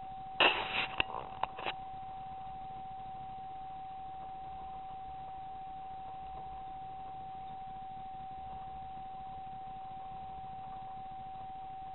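Rifle shot: one sharp crack about half a second in, then a few smaller clicks and knocks over the next second. Under it, a steady high electronic whine from the digital night-vision scope.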